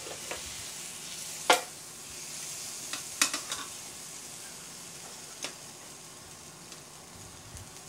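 Steak sizzling on an electric contact grill, a steady hiss that slowly fades, while metal tongs lift it onto a plate. Sharp tong clacks about a second and a half in (the loudest), a few more around three seconds, and one more near the middle.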